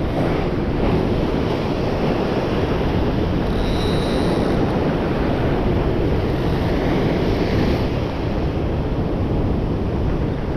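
Ocean surf washing against the rock ledge, with wind buffeting the microphone; a steady, loud wash of noise.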